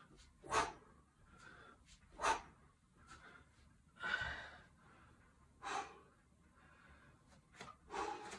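Sharp, forceful breaths from a person doing one-handed kettlebell swings, one per swing, about every second and a half to two seconds. About four seconds in, as the swinging stops, these give way to slower, heavy breaths of recovery.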